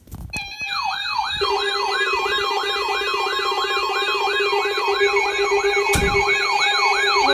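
Electronic siren sounding in quick rising sweeps, about three a second, over several steady held tones, with a sharp click about six seconds in.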